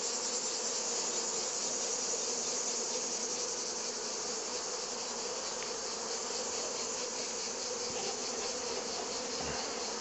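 Honeybees buzzing steadily in a dense hum around an open nucleus hive that is full of bees: a populous, thriving colony.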